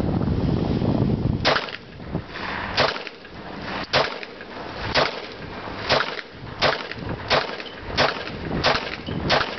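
Single shots from an AK-pattern WASR-10 rifle in 7.62×39 mm and a Glock 23 pistol in .40 S&W, fired one after another: about nine sharp reports starting about a second and a half in, roughly one a second and coming a little quicker toward the end. A low rumble comes before the first shot.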